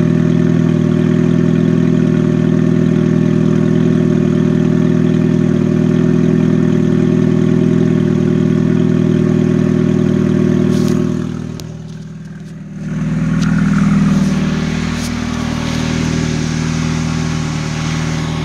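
A 2000 Ford Focus LX's four-cylinder engine idling with no muffler, a loud, steady exhaust drone close under the car, still warming after a cold start. About eleven seconds in there are a few knocks and the sound dips for about a second, then the idle carries on a little quieter and less even.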